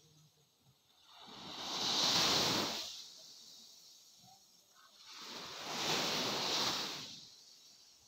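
Small waves washing up on a sandy beach: two washes about four seconds apart, each swelling and dying away over about two seconds.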